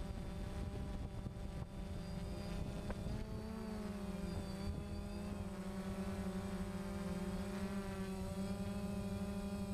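DJI Phantom quadcopter's motors and propellers droning steadily, heard from the camera on board. The pitch wavers slightly as the motors adjust, over a low rumble.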